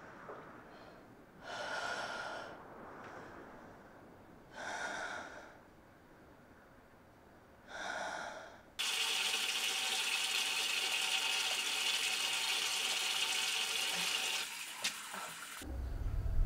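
A woman breathing slowly and heavily, three long breaths a few seconds apart. Then a tap suddenly runs in a steady stream of water into a glass for about seven seconds and cuts off abruptly, as a low rumble comes in.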